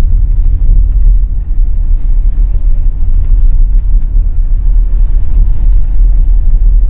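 Car driving, heard from inside the cabin: a loud, steady low rumble of road and engine noise.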